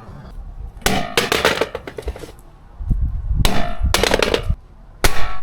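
A plastic-cased digital multimeter dropped from about five feet, hitting a hard floor. There are several clusters of sharp clattering impacts as it strikes and bounces, with parts loose and shaking around inside.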